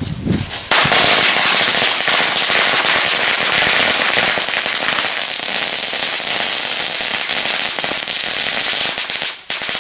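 A large batch of firecrackers set off together from one fuse, going off in a dense, continuous rapid crackle of bangs. It starts about a second in and cuts off sharply near the end.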